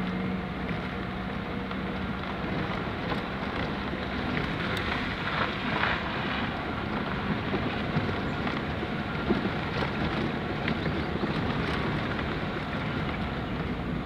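A vehicle driving along a rough dirt track: a steady rumble of engine, tyres and wind, with scattered small knocks and rattles.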